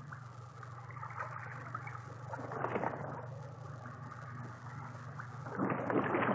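Running stream water gurgling and trickling, swelling louder twice, over a steady low hum.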